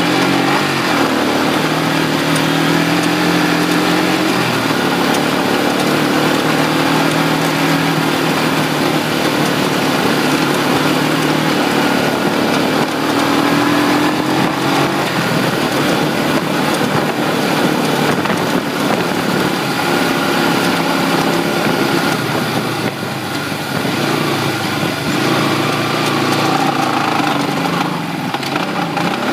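1988 Kawasaki Mojave 250 ATV's single-cylinder four-stroke engine running hard under load, its pitch rising and falling as the throttle is worked, easing off briefly a couple of times near the end. Heard up close from a phone mounted on the front of the quad.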